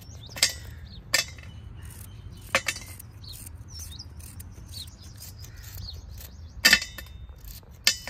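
Dried coconut (copra) being sliced by hand with a small knife over a steel plate, with about six sharp metallic clinks as pieces drop or the blade touches the plate. Birds chirp faintly in the background.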